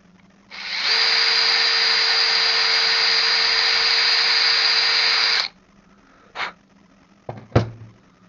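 Small electric drill with a 3 mm bit running at a steady, high, even pitch for about five seconds, then stopping abruptly. A short click follows, then two sharp knocks near the end.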